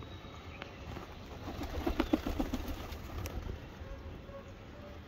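Domestic pigeons cooing in a flock. About halfway through, one bird gives a short run of low, pulsing coos, the loudest sound.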